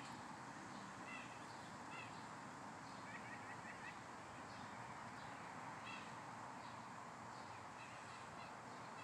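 Faint, distant wild birds calling: a few short call notes spread through, with a quick run of repeated notes about three seconds in.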